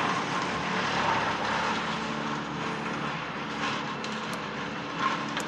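Motor vehicle engine running steadily in street traffic, a constant hum that eases off slightly over a few seconds.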